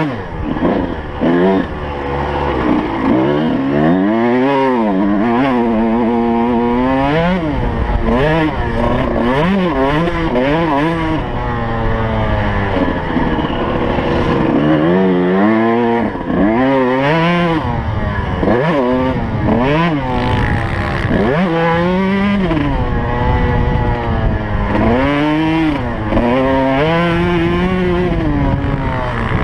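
2003 Suzuki RM125's single-cylinder two-stroke engine revving hard under riding. Its pitch climbs and drops back many times as the throttle and gears are worked.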